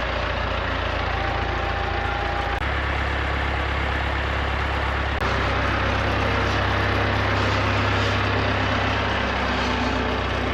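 Tractor engine running steadily at idle, a low even hum that shifts slightly in pitch a couple of times.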